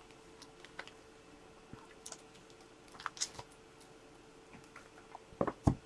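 Scattered light clicks and taps of hands handling things at a desk, with two heavier thumps near the end, over a faint steady hum.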